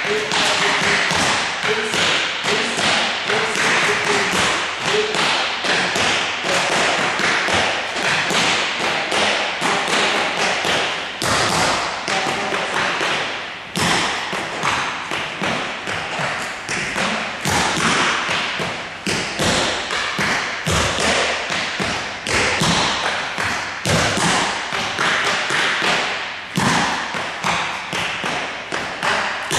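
Tap shoes' metal taps striking a hard floor in quick, continuous rhythmic patterns: a tap combination of flaps, ball changes, stamps and essences. Light toe taps are mixed with heavier stamps.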